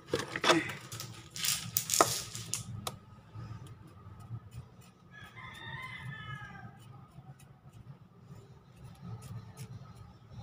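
A few sharp scrapes and knocks of a metal garden trowel in loose potting soil in a plastic tray in the first three seconds. A rooster crows once, about five seconds in, lasting about a second and a half.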